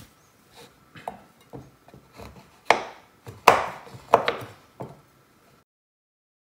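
Knife chopping a bar of milk chocolate finely on a cutting board: irregular chops, a few sharper ones in the middle. The sound cuts off to dead silence near the end.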